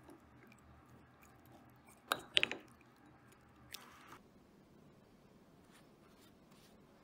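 Wooden spoon stirring shrimp, sliced garlic and olive oil in a small glass bowl, knocking against the glass in a quick cluster of sharp clicks about two seconds in and a shorter one near four seconds.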